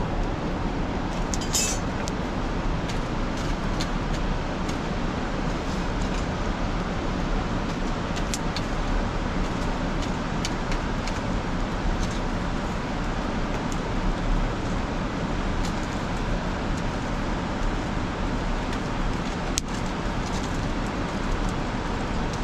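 Wood fire crackling with scattered sharp snaps over a steady low rumble.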